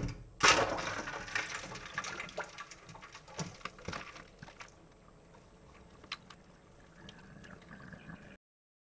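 Water splashing and sloshing around an aluminium brew pot of hot wort set in a sink of cold water to cool it, a loud swoosh about half a second in that dies away into scattered small splashes and knocks.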